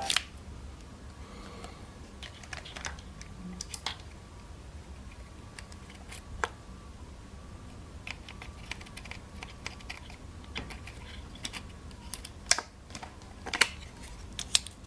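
Irregular light clicks and taps, a few of them sharper, over a faint steady hum.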